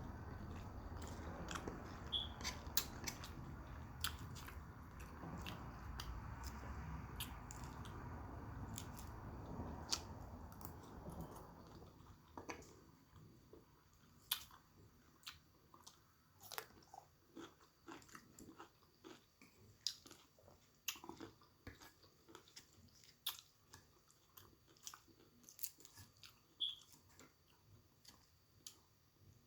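Close-miked chewing and biting of steak and salad: dense crunchy chewing for about the first twelve seconds, then quieter chewing with scattered sharp mouth clicks.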